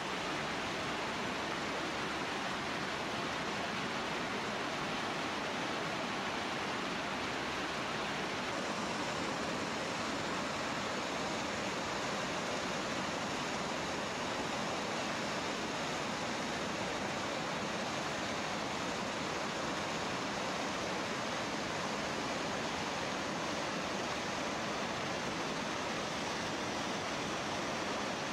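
Steady rush of sand-and-water slurry pouring from a dredging pump's discharge pipe and splashing into a tank. The pumped mix is about 40% solids.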